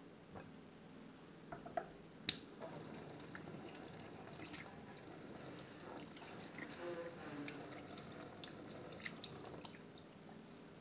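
Faint water dripping and trickling into a stainless-steel sink, with a few light clicks in the first couple of seconds.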